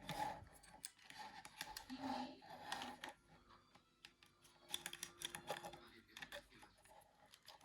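Faint small clicks and scratches of Nokia 9300i plastic parts and flex cable being handled and fitted by hand, in clusters during the first three seconds and again around five to six seconds in.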